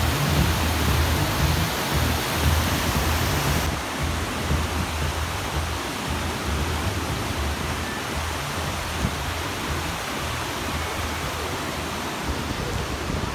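Stream water rushing down small rocky cascades: a steady rushing noise with a heavy low rumble. About four seconds in the sound turns duller as the high end drops away.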